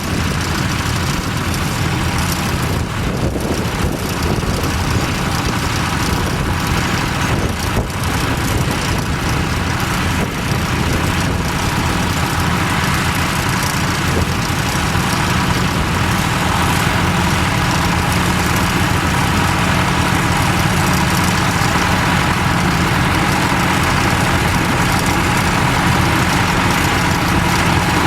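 Vintage tractor engine running steadily, its level rising slightly about halfway through.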